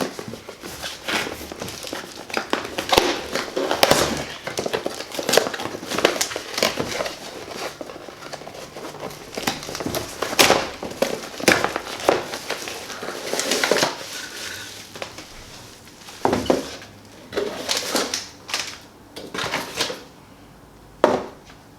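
Cardboard and plastic packaging of a headphone box being handled and opened: irregular crinkling, rustling and light knocks, with short pauses.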